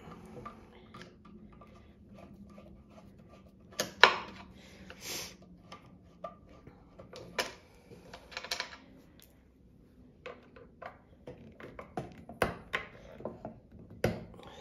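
Scattered clicks, clinks and knocks of a screwdriver and small screws being handled against the underside of a sewing machine's base while screws are taken out. The loudest is a single sharp clack about four seconds in.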